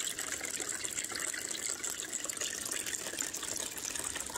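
Water running steadily over the ribbed matting of a gold cube sluice, an even, continuous splashing.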